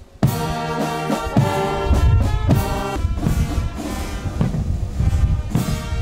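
Brass band playing slow, held chords, with trumpets and trombones.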